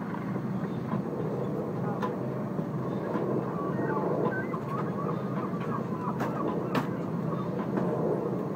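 Cabin noise of an Airbus A330-300 taxiing: the steady low rumble of the running engines and rolling gear. A few sharp knocks come about two seconds in and twice more a little past the middle.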